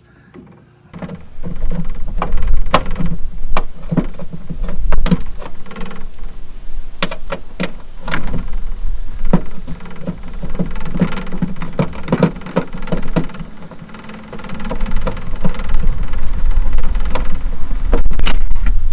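Irregular clicks and knocks of hands working at a Holden Astra's boot latch mechanism and its plastic trim, over a steady low rumble.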